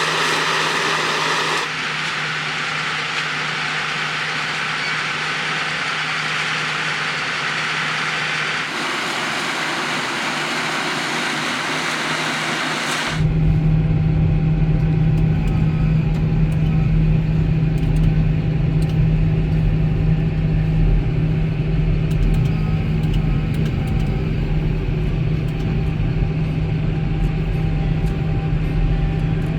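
Farm tractors and potato-harvesting machinery running steadily, in several shots. For the first half, machinery noise is spread through the middle and upper range. About halfway through it changes to a steady, louder low engine hum.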